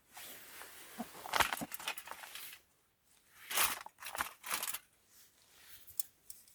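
MRE shake pouch crinkling as it is handled, in several uneven rustles with a short pause in the middle.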